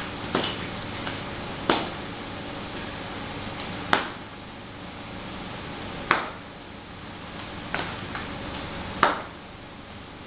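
Stiletto heels of ballet boots clicking on a hard granite tile floor: about six sharp taps spaced one to two seconds apart, as slow, uneven steps, with a few fainter ticks between.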